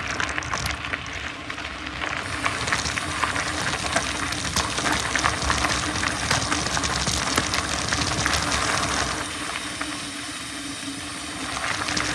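Mountain bike rolling along a dirt forest trail: tyres crackling over loose dirt and small stones, with many small clicks and rattles from the bike. The crackle thins out about nine seconds in.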